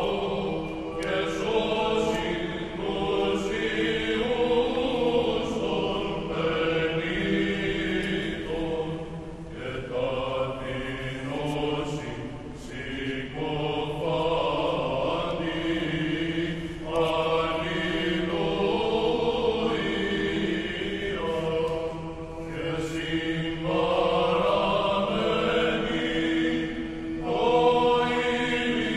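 A choir chanting in unison over a held drone note, in the manner of Byzantine Greek Orthodox chant, the melody moving in phrases with short breaks every few seconds.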